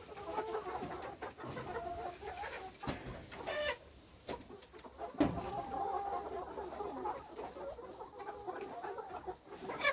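Chickens clucking steadily in short, low calls, with a louder call about three and a half seconds in.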